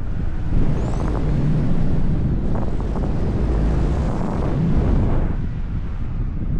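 Wind buffeting the microphone of a camera flown alongside a paraglider in flight: a deep, steady rush of airflow that swells and eases a little. A faint, short high whistle rises about a second in.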